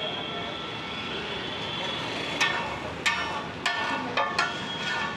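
Metal spatula striking and scraping a large flat tawa griddle: about six sharp, ringing clangs in the second half, over a steady street-stall background.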